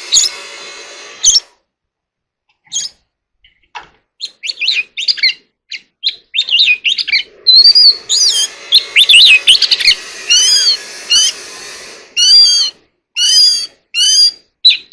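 Oriental magpie-robin singing: a varied run of clear whistled notes gliding up and down, broken by a pause of a couple of seconds near the start, then a string of repeated, similar phrases near the end.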